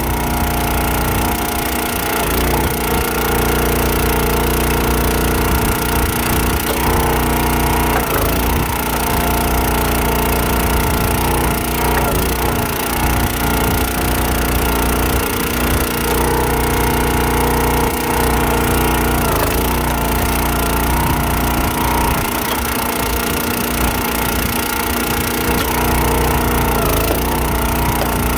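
Countyline 25-ton log splitter's small gas engine running steadily while the hydraulic ram splits rounds of firewood, with the wood cracking as it splits.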